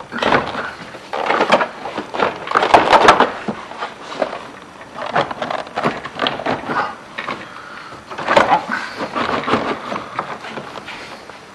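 Interior door panel of a 2002 GMC 2500 being worked loose from the door: plastic creaking and scraping, with clicks and snaps as the retaining clips pop free. The loudest bursts come about three seconds in and again past eight seconds.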